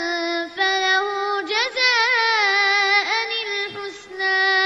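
A boy's voice chanting Quran recitation in the melodic tajweed style, drawing out long held notes with wavering ornamented turns, with brief breaks between phrases.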